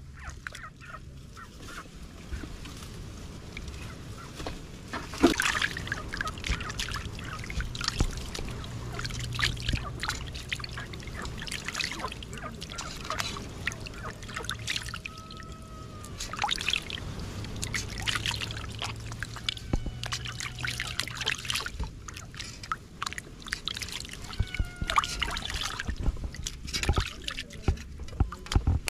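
Water splashing, sloshing and dripping in a metal basin as hands wash and lift out pieces of raw catfish, in irregular bursts.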